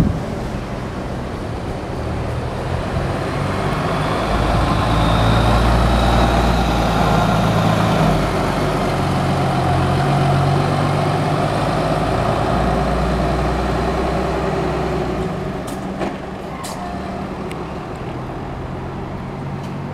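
Mitsubishi Fuso Aero Midi KK-MJ27HL bus's diesel engine pulling away from a stop and accelerating. The rumble builds a few seconds in and fades as the bus drives off.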